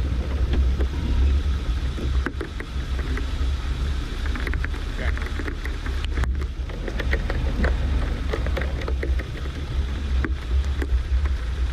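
1987 Suzuki SJ413's engine running with a steady low rumble as it drives off-road, with frequent short knocks and rattles.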